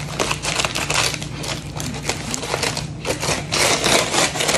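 Packing material rustling and crinkling in quick, dense crackles as a mailed plant is unwrapped by hand.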